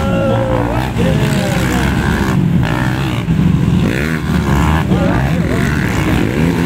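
Motocross dirt bike engines revving up and down over and over during a race, several bikes at once.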